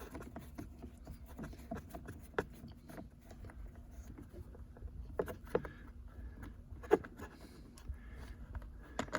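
Screwdriver backing a screw out of a car's plastic centre-console trim: scattered light clicks and scrapes of the tool and plastic.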